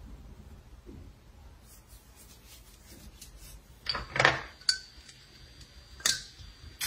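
A glass perfume bottle lifted off a glass shelf, clinking and scraping against it about four seconds in, followed by a few sharp clicks as the bottle is handled.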